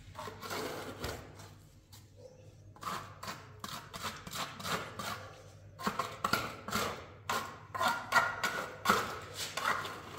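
A small trowel scraping and dabbing wet cement along the base of a wall, in quick irregular strokes that grow louder and busier from about six seconds in.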